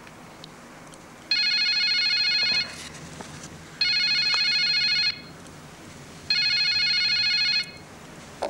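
Telephone ringing three times with an electronic trilling ring, each ring just over a second long and about two and a half seconds apart.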